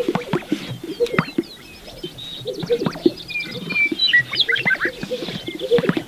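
Displaying male greater sage-grouse: repeated low pops from their inflated chest air sacs, with many short high chirps and whistles over them, thickest in the second half.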